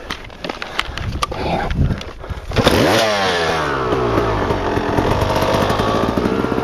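Suzuki RM250 two-stroke dirt bike engine: a few knocks and rattles, then about two and a half seconds in the engine comes in loud, its pitch sweeping as it revs before settling into a steady run as the bike gets under way.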